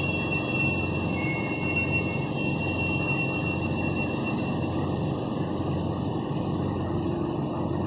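Steady low droning noise of unknown source, the strange noise that has been going on for a long time, with a faint thin high tone over it for the first few seconds.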